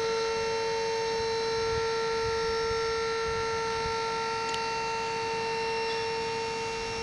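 Electric-hydraulic tipper pump running steadily as the trailer tray tips up, giving a constant whine that holds one pitch.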